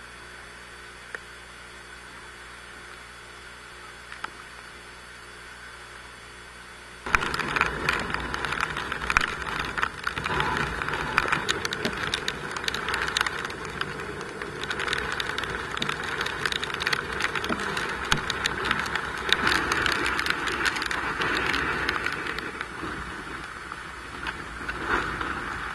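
A faint steady hum. About seven seconds in, loud hurricane-force wind cuts in, rushing and gusting, with rapid crackling buffets on the microphone.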